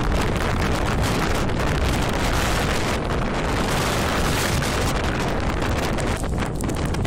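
Typhoon gale buffeting the microphone: a loud, steady rushing roar with a deep rumble underneath.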